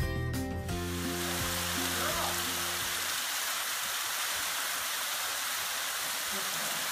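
Background music fades out over the first few seconds, giving way to the steady, even hiss of a thin waterfall spilling over a rock ledge and splashing onto the rocks below.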